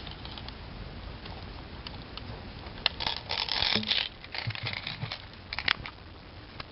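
Irregular rustling and crinkling handling noise. It comes in bursts, the loudest about three to four seconds in and again near six seconds.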